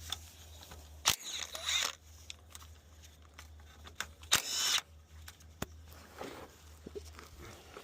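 Mechanic's tools working on transmission oil pan bolts: two sharp clicks a few seconds apart, each followed by a brief whir, over a steady low hum.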